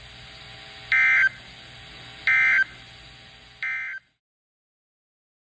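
EAS end-of-message data bursts on a NOAA Weather Radio broadcast: three short bursts of digital data tones, about a second and a half apart, over a steady faint hiss. They signal the end of the severe thunderstorm warning, and the audio then cuts off suddenly.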